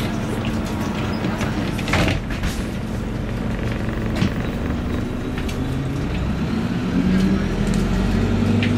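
Inside the cabin of a 1999 NABI 40-LFW transit bus, its Detroit Diesel Series 50 engine drones steadily under road noise, with a brief louder burst about two seconds in. Near the end the engine note rises and grows louder as the bus accelerates.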